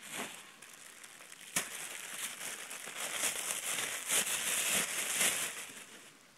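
Plastic bag crinkling and rustling as hands rummage through a backpack, loudest in the second half, with a single sharp snap about a second and a half in.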